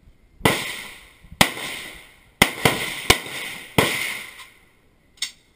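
AK-47 assault rifle, 7.62×39 mm, fired one shot at a time: about six sharp shots roughly a second apart, each trailing off in echo. A fainter crack follows near the end.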